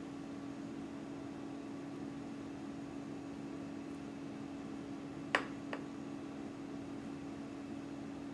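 A metal spoon clinks twice in quick succession against a glass baking dish as it scoops into tiramisu, a little over five seconds in. A steady low hum runs underneath.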